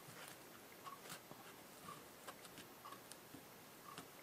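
Near silence: room tone with faint, short ticks about once a second.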